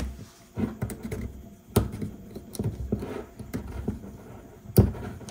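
Plastic screw lid being set on a glass Kikkoman soy sauce dispenser bottle and twisted on by hand: small clicks and scrapes on the threads, a sharp click at the start and two louder knocks, the loudest near the end.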